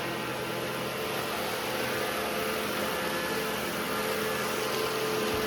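Robot vacuum cleaners running: a steady whir of suction and brush motors with several faint steady tones, no change in level.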